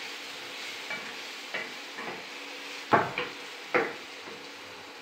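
Wooden spatula stirring food frying in a frying pan: a steady sizzle with a series of scrapes and knocks of the spatula against the pan, the loudest about three seconds in.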